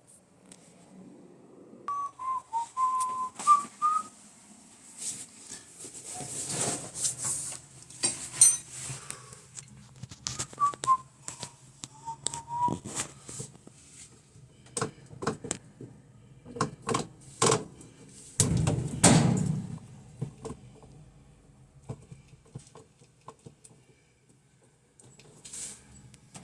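A person whistling a few short notes twice, amid scattered sharp clicks and knocks. A low steady hum runs through the middle stretch and swells briefly about two-thirds of the way in.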